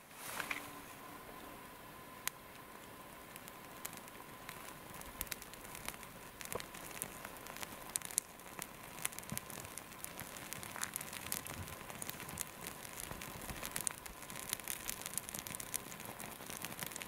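Dry twigs and brush in a pile of campfire kindling crackling and rustling, with many small sharp snaps that come more often in the second half.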